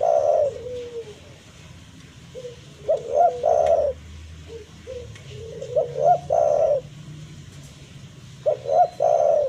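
Spotted dove cooing: each phrase is two or three short rising notes followed by a longer, loud coo. The phrase repeats about every three seconds, four times.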